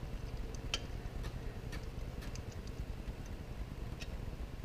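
A socket and ratchet on the new exhaust manifold's bolts, giving about seven faint, irregularly spaced metallic ticks over a low steady rumble.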